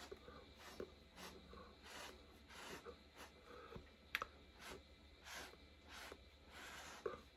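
Faint, repeated scraping of a thin stick drawn through wet acrylic paint on a canvas, about one stroke every two-thirds of a second, with a few light ticks of the stick against the surface.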